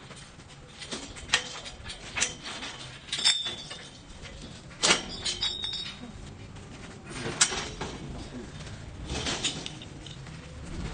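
Galvanized steel scaffolding parts being fitted together: irregular metal clanks and knocks, some with a brief ring.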